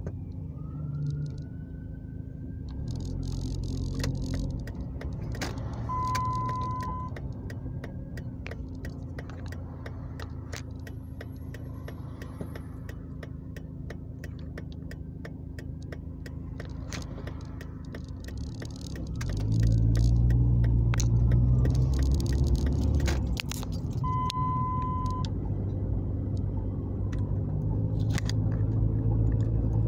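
A car engine and cabin noise heard from inside the car, with frequent small clicks and jingles. About two-thirds of the way through, the engine grows louder as the car pulls away. A short steady beep sounds twice, about a second each time.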